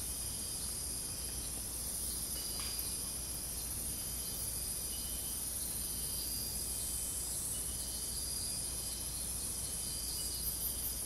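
A steady, high-pitched chorus of insects in the rainforest, with a low hum underneath.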